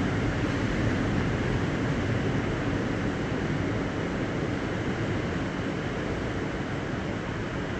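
Steady rushing noise of storm wind and ocean surf, easing slowly.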